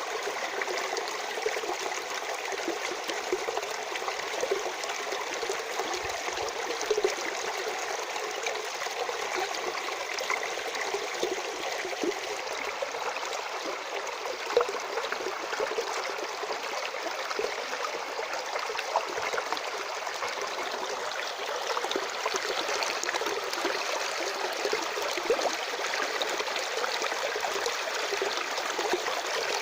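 Stream of water flowing and trickling steadily, with many small splashes.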